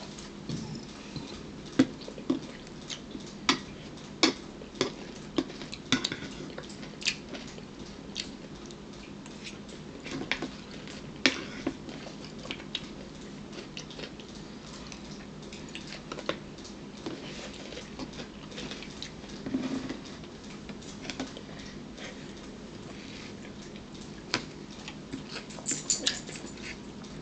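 Close-up eating sounds: irregular wet clicks and smacks of chewing, one to three a second. Near the end comes a quick run of sharper taps, a fork against a china plate.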